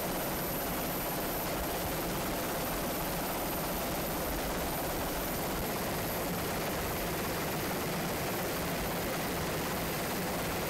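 Steady drone of an aircraft engine and rotor, even and unbroken, with a faint low hum. No explosion or impact stands out.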